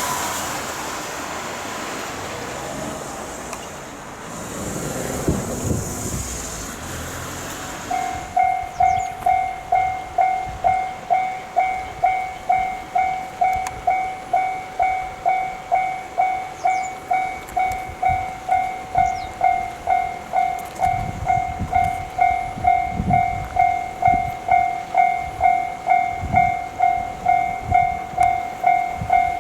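Japanese level-crossing alarm, a 1987 Sanko-sha unit, starting up about eight seconds in. It rings a mid-pitched ding about twice a second, each stroke fading quickly. Before it starts there is a broad rushing noise.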